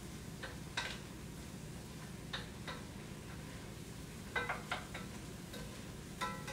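About nine light clicks and ticks, irregularly spaced and often in pairs, over a faint steady low hum.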